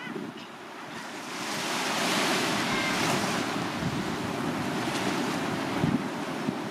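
Small waves breaking and washing up on a sandy shore. The surf swells about a second and a half in, then holds steady.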